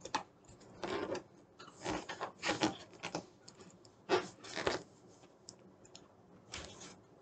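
A rubber party balloon being handled and tied off: short, irregular bursts of rubber rubbing and stretching against fingers.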